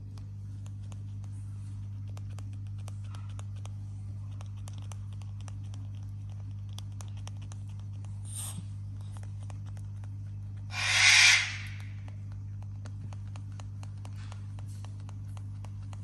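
Many small clicks and taps over a steady low hum. About eleven seconds in comes one loud, harsh animal call, noisy rather than pitched and lasting about a second, from the cockatoo or the raccoon at the box hole.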